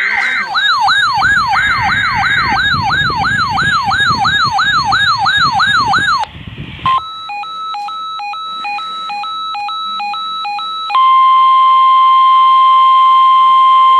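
Electronic emergency alert tones. A warbling siren-like tone sweeps down about three times a second for about six seconds. After a short gap comes a stepped pattern of alternating beeping tones. From about eleven seconds a single steady alert tone sounds, louder than the rest.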